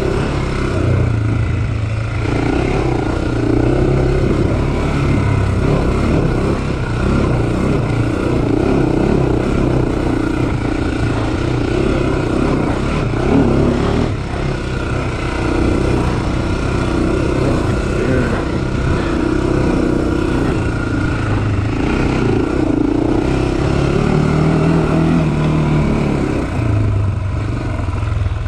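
Honda 400 sport quad's air-cooled single-cylinder four-stroke engine running under way on a sandy trail, its revs rising and falling as the rider works the throttle.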